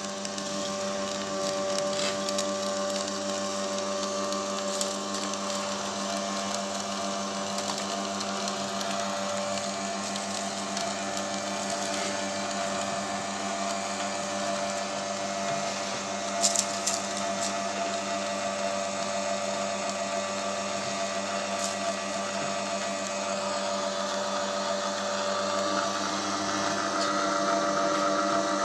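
Small electric screw oil press running steadily while pressing sesame seeds, its motor and screw giving a constant hum, with a few faint clicks.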